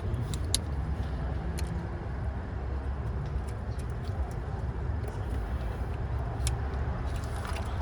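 Steady low rumble in the background with a few scattered sharp light clicks of metal hardware and hand tools being handled while a washer and bolt go onto a car starter.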